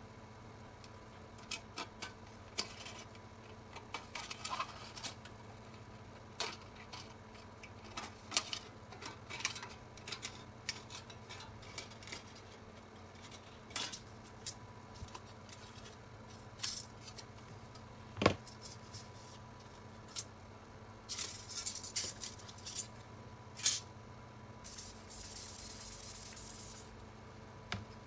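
Scattered light clicks and taps of small tools and materials being handled at a work surface, with one sharper knock past the middle. Near the end comes a steady, rubbing hiss lasting a couple of seconds.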